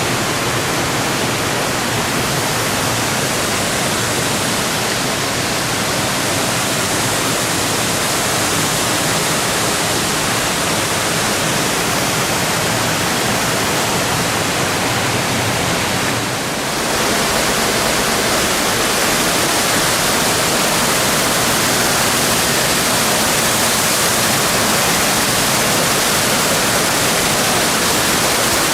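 Waterfall crashing down: a loud, steady rush of falling water, briefly dipping about two thirds of the way through.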